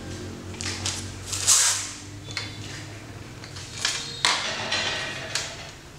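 A clear plastic packaging bag of cable ties crinkling and rustling as it is handled, in several short bursts, the loudest about one and a half seconds in, with a light knock or two about four seconds in.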